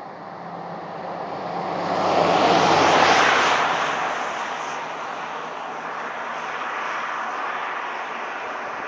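A vehicle passing by: a rushing engine sound that swells to a peak about three seconds in, then fades to a steadier, lower level.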